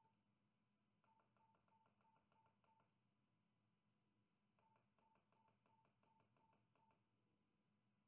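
Very faint keypad beeps from a BKR 5000 handheld radio as letters are keyed in, in two quick runs of short beeps, about three a second.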